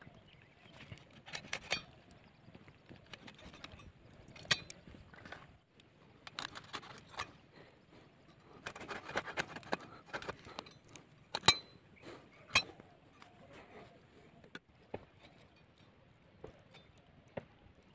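Scraping and handling noises as singed chicken skin is scraped clean against a curved iron blade over a metal plate. There are a few sharp metallic clinks, the loudest about two-thirds of the way through.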